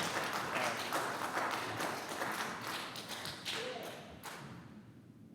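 Congregation applauding, with scattered claps that fade away about four seconds in.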